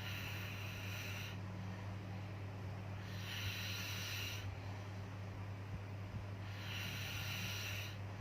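Snoring: three slow, hissy breaths about every three and a half seconds, over a steady low hum.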